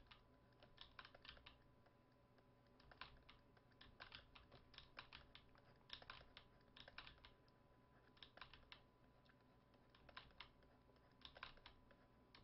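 Faint computer keyboard clicks, coming in short irregular clusters every second or two, over a faint steady hum.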